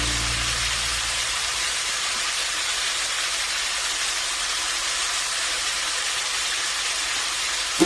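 Steady, even hiss from food cooking in a pan on the stove, without distinct crackles.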